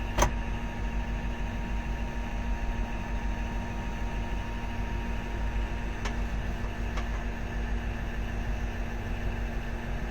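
Komatsu PC3000 mining excavator running with a steady engine drone. There is one sharp click about a quarter second in and two faint clicks around six and seven seconds in.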